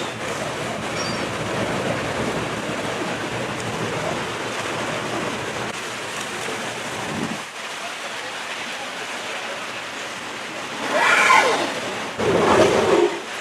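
Steady wind and sea noise on the open ocean, with two brief, louder bursts of voices near the end.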